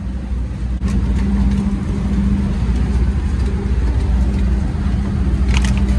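Engine of heavy machinery running steadily, a low drone with a constant hum that gets louder about a second in. A couple of light metallic clicks near the end.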